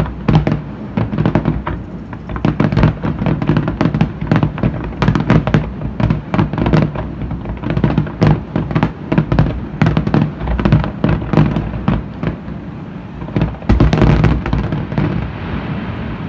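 Aerial fireworks bursting in rapid, overlapping bangs with crackle, a dense volley about fourteen seconds in, then thinning out near the end as the display finishes.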